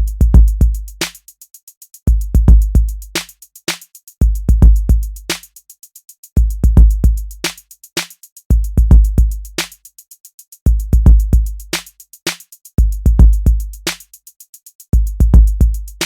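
Amapiano instrumental beat: a phrase of deep, pitched log-drum bass hits repeating about every two seconds over fast, steady hi-hat ticks and sharp percussion hits, with no vocals.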